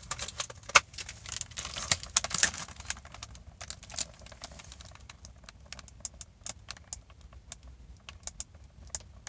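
Clear plastic egg carton being handled, crackling and clicking in quick irregular bursts. The clicks are densest in the first couple of seconds, the loudest about a second in, and grow sparser after.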